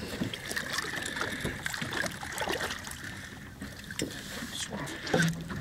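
Water splashing and sloshing at the boat's side as a large striped bass is brought alongside and grabbed by hand, with scattered irregular knocks and a faint steady high hum underneath.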